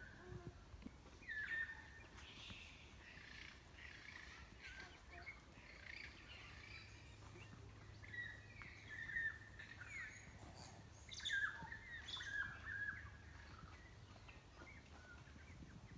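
Several New Zealand forest birds chirping and whistling in short overlapping calls of varying pitch, with a faint low rumble underneath.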